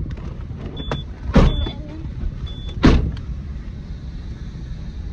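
Steady low rumble of a car on the move, with two sharp thumps about a second and a half apart and three short high beeps.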